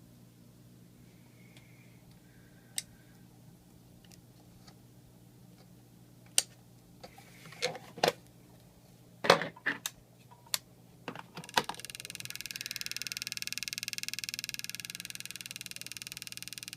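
Clicks and knocks of an ultrasonic mosquito repeller being handled, then about five seconds of a high, fast-pulsing electronic buzz from the repeller that cuts off with a click. This audible buzz is the unit's fault; it is meant to be ultrasonic.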